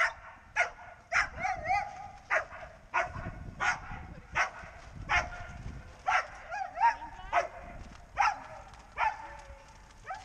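A dog barking over and over, about one bark every 0.7 seconds, with high whining yelps between some of the barks.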